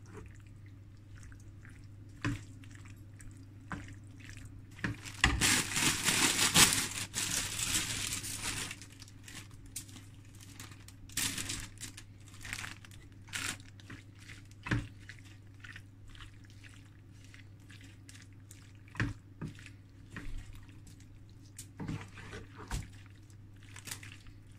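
Wooden spatula stirring and scraping pasta shells in a sauce-laden frying pan, with scattered wet squelches and knocks against the pan. A louder rush of noise lasts about three seconds, starting about five seconds in, over a steady low hum.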